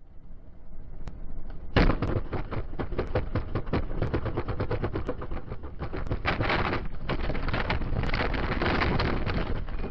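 A vehicle running off the road over rough ground into brush: a sudden loud crack about two seconds in, then a continuous hard rattling clatter of many sharp knocks.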